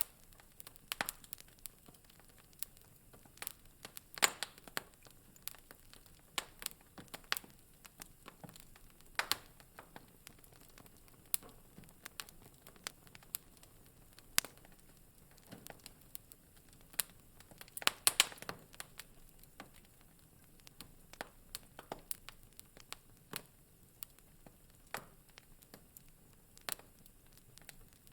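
Wood fire crackling in a fireplace: irregular sharp pops and snaps over a faint hiss, with a quick cluster of louder pops about four seconds in and again around eighteen seconds in.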